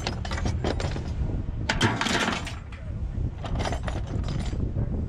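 Loose steel scrap parts clanking and clattering against each other as they are picked up and moved around a pickup truck bed, with the loudest clatter about two seconds in, over a low steady rumble.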